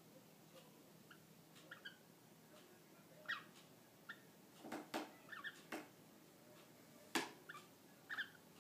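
Female cockatiel making her mating noise: faint, short high chirps every second or so, with a few sharp clicks in between, the loudest a little after seven seconds in.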